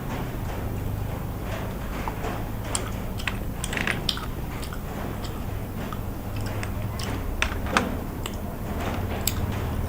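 Close-miked eating sounds from spicy seafood and snails: irregular chewing and biting with scattered sharp little clicks, over a steady low hum.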